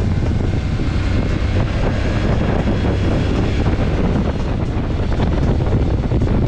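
Motorcycle engine running steadily while riding, mixed with heavy wind buffeting on the microphone.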